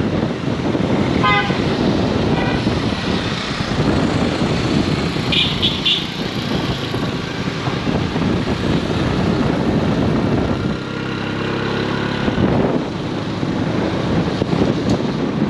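Busy road traffic with motorcycle and car engines running, and three quick horn toots about five and a half seconds in. An engine runs louder and closer around eleven to twelve seconds in.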